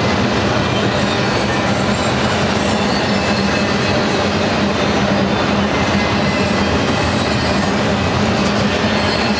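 Double-stack intermodal well cars rolling past at close range: a steady, loud rumble of steel wheels on rail, with a constant low hum underneath.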